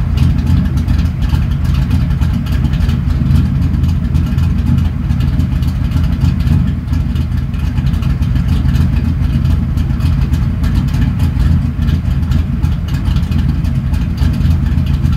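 1995 Pontiac Trans Am's LT1 V8 with an aftermarket TPIS camshaft idling steadily at operating temperature, at about 1,000 rpm, its exhaust heard from behind the car.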